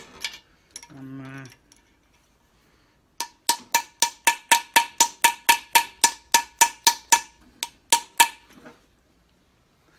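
Hammer striking a steel punch in a fast run of ringing metal blows, about four a second, fading near the end. The punch is driving out a bolt whose countersunk head has been cut off, to split a 1973 Foden S80 lorry's front hub from its brake drum.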